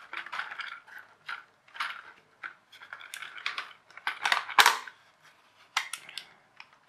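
Irregular plastic clicks, knocks and scrapes as a toy RC car is handled and turned over, with the loudest knock about four and a half seconds in.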